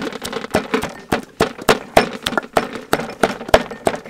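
Cleaver chopping raw meat on a round wooden chopping block, rapid steady strokes at about four a second.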